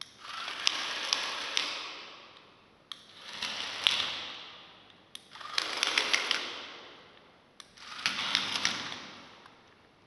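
Small DC gear motors of a two-wheeled robot car running in four bursts of about two seconds each as it drives and spins on tile. Each burst starts abruptly and dies away, with clicks and ticks while it moves.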